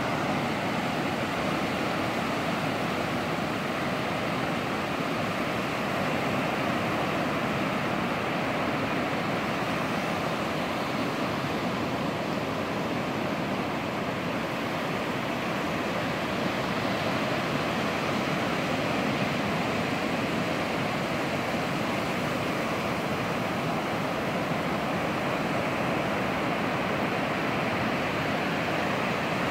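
Ocean surf breaking and washing up a sandy beach: a steady, even rushing noise.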